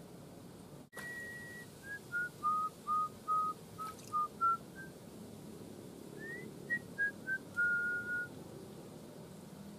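A man whistling a short tune by mouth, in clear single notes. It opens on a held high note, then a run of short notes steps down and back up. After a pause comes a rising note, then a few falling notes ending on a held one.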